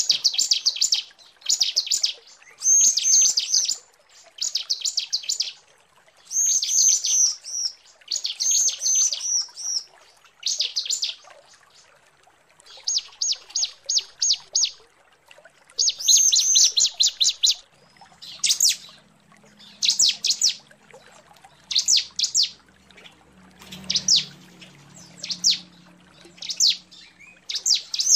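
Female bar-winged prinia (ciblek) calling: repeated bursts of rapid, dry, high-pitched ticking notes, each burst about a second long with short pauses between them. This is the female's call used as a lure to draw in males.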